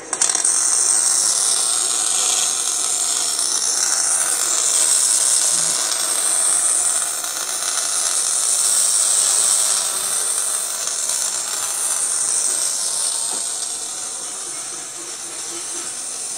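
Simulated welding-arc hiss from a Lincoln Electric VRTEX virtual welding trainer as the gun is run along the practice coupon: a steady, high hiss that swells a little and eases near the end.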